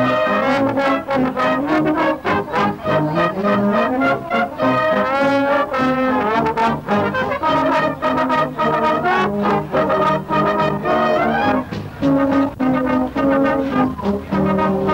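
Music played on brass instruments, a continuous tune of changing notes over a steady beat.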